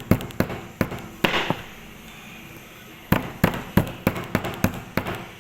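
Kitchen knife chopping herbs on a cutting board: sharp, rhythmic strikes about three to four a second, with a short scrape about a second in, a pause of about a second and a half, then chopping again.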